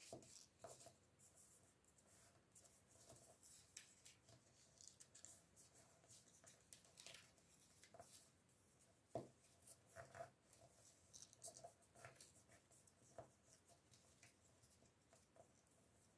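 Faint rustling and crinkling of colored origami paper as fingers fold and crease it into accordion pleats, with scattered soft crinkles, the clearest about nine seconds in.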